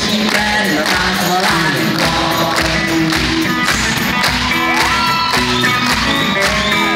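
Live rock band playing in concert, heard from within the crowd: a steady, driving beat under guitar and singing. Crowd voices and shouts are mixed in, with a few rising and falling shouts in the second half.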